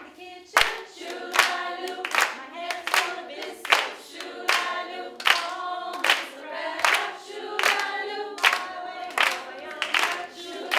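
A group of voices singing together unaccompanied, with hand claps keeping a steady beat about once every three-quarters of a second.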